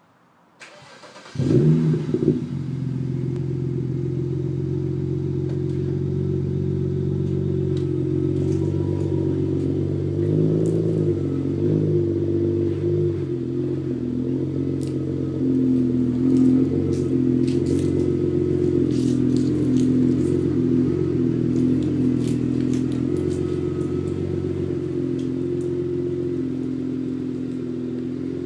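BMW N54 twin-turbo inline-six in an E61 535i wagon, breathing through a custom exhaust with muffler delete and H-pipe, started warm: it catches about a second in with a short loud flare, then settles into a steady, low idle with a few small changes in pitch midway.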